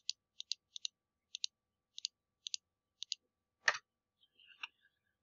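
Computer mouse clicking as objects are selected on screen: a run of short, light clicks, many in quick pairs, over the first three seconds, then one sharper, heavier click a little past halfway.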